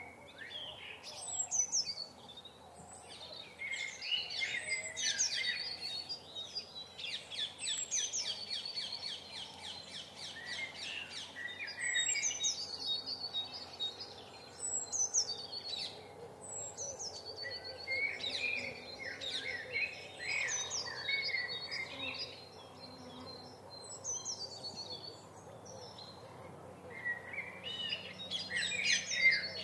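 Songbirds singing and calling, with short high chirps and falling whistles repeated throughout and a fast trill of rapidly repeated notes about a quarter of the way in.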